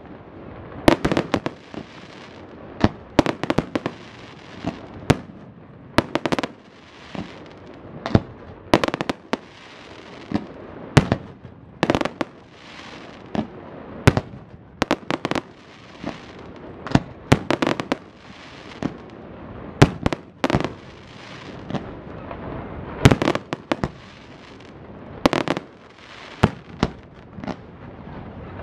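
Fireworks display: aerial shells bursting one after another, sharp bangs every second or two and sometimes several in quick succession, with steady noise between them.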